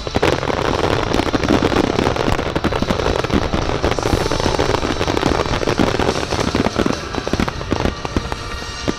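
Fireworks display: many shells bursting in rapid, overlapping succession, with crackling.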